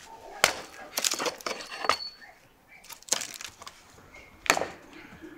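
A series of sharp cracks and knocks at irregular spacing: one about half a second in, a quick run of them between one and two seconds in, a few more just after three seconds, and a loud single crack near the end.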